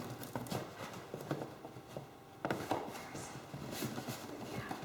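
Irregular knocks, taps and scrapes as a piece of covering material is pushed and worked up under the lip of a recliner's base, with a louder knock about two and a half seconds in.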